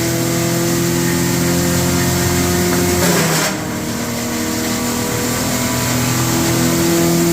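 Wood crusher running with a steady hum, a short burst of grinding noise about three seconds in, after which its pitch drops and then slowly climbs back up.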